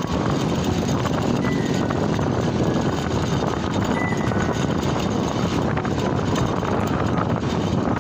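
Motorcycle on the move: a steady rush of engine, road and wind noise.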